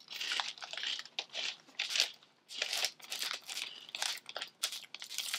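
Crinkly cereal bag being handled and pulled at by hand, rustling in irregular bursts.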